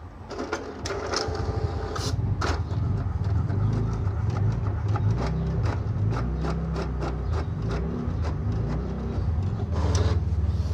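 HP inkjet printer printing a test page: its paper-feed and print-head carriage motors run with a low hum and a rapid run of clicks, starting about a second in. The printed sheet comes out of the front near the end.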